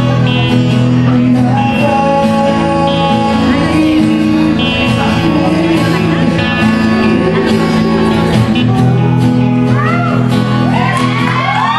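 Male voices singing a worship song into microphones, accompanied by strummed acoustic guitar and a bowed violin.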